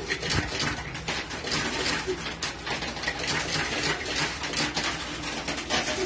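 Metal coins clattering and clinking inside a coin pusher arcade machine as coins are dropped in and the sliding shelves shove the coin piles. Many quick small clicks, over a faint steady hum from the machine.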